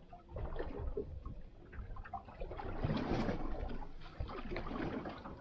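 Water slapping and sloshing against the hull of a small boat drifting at sea, swelling in the middle, with a few light knocks.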